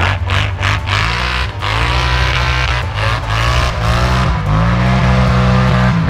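Polaris Scrambler XP 1000 ATV's twin-cylinder engine revving hard under throttle, its pitch climbing and dropping several times as it accelerates through snow.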